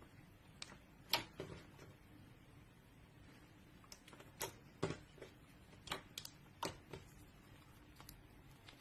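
Slime being handled, giving irregular sharp little pops and clicks, a dozen or so, coming more thickly in the second half.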